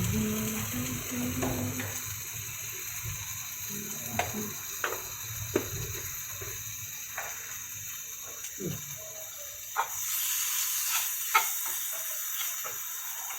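A spice masala of chillies, tomato and ginger-garlic paste sizzling as it fries in a pan, with sharp clicks now and then as it is stirred. The sizzle grows louder near the end.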